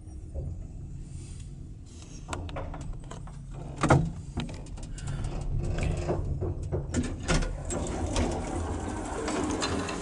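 Passenger lift travelling down: a steady low hum with scattered clicks and rattles, and a sharp knock about four seconds in. Near the end the car comes to a stop and the doors open.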